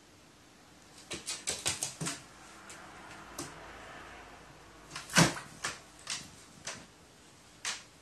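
A series of sharp taps and knocks in a small room: a quick cluster of about half a dozen about a second in, then a louder single knock about five seconds in and a few scattered knocks after it.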